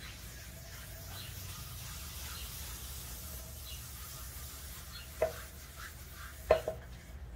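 Paper towel wiping mineral oil across the end grain of a wenge cutting board: a steady soft rubbing hiss, with two sharp taps near the end.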